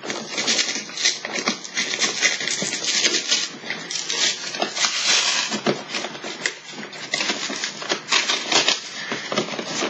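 Fingers prying and tearing open the glued top flap of a cardboard box: a dense run of crackling, scratching and tearing, loudest about five seconds in.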